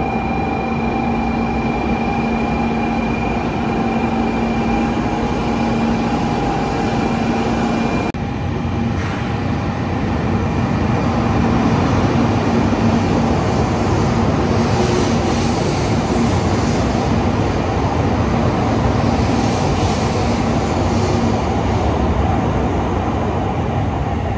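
Kyushu Shinkansen 800 Series bullet train pulling out of the station: a steady electrical hum, then about eight seconds in the rumble of the moving train takes over and grows a little louder as it gathers speed past the platform.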